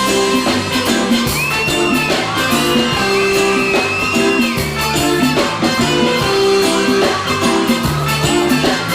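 Live band playing an instrumental passage: guitar over a bass line and drums, with no singing.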